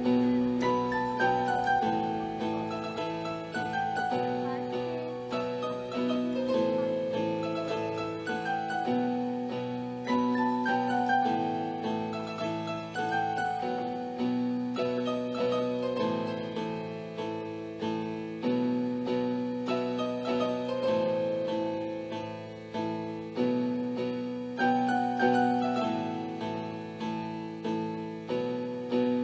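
Piano music: single notes and chords struck one after another, each fading before the next.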